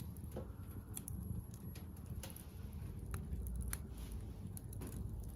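Wood fire of scrap building timber crackling, with scattered sharp pops and snaps over a low steady rumble.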